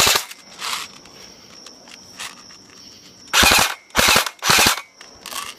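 Stock airsoft AK-74 rifle firing: a short burst at the very start, then three quick bursts about half a second apart from a little past the middle.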